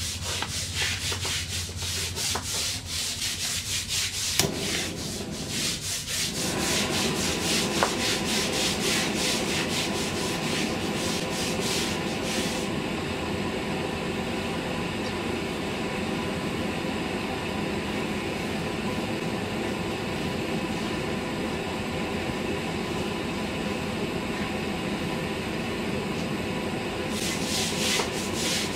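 Handheld butane gas torch firing. A rapid crackling tick comes first; about four seconds in the flame's steady hiss starts and swells around six seconds, then runs evenly. The crackle fades out about halfway and comes back briefly near the end.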